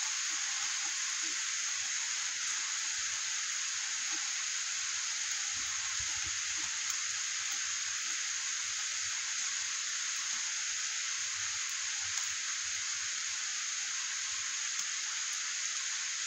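Steady rain falling on a wet street: an even, constant hiss with faint scattered ticks of drops.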